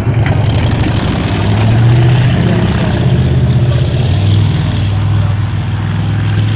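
Rat rod's engine running past at close range on a dirt oval, a low steady note that drops in pitch about four seconds in, with a steady hiss above it.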